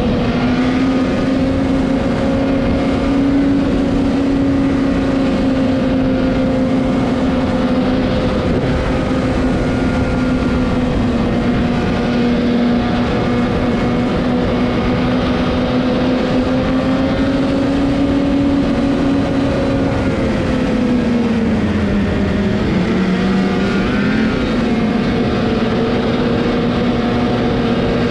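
Snowmobile engine running steadily at cruising speed. Its pitch dips for a moment about three quarters of the way through as the throttle eases off, then climbs back.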